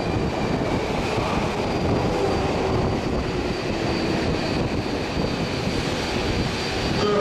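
A train running out of sight in the subway tunnel: a steady rumble with rail noise.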